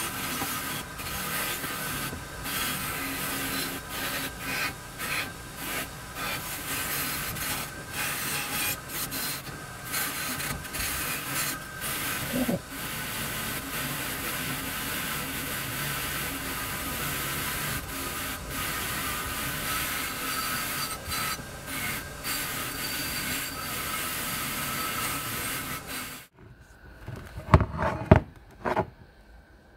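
Bench grinder wheel spinning while a rusty cast-iron part is pressed against it, a steady scraping with a constant motor whine, to strip rust. It cuts off suddenly about 26 seconds in, followed by a few sharp metal clinks and knocks.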